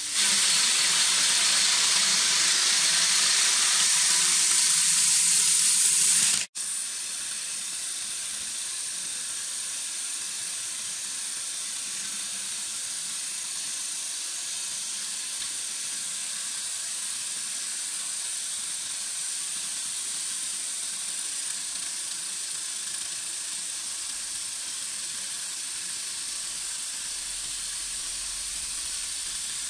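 CNC wood lathe cutting a spinning wooden bowl blank: a loud, steady hiss of the cutter shaving the wood that cuts off suddenly about six seconds in, followed by a quieter steady hiss of the machine running, with a thin high whine throughout.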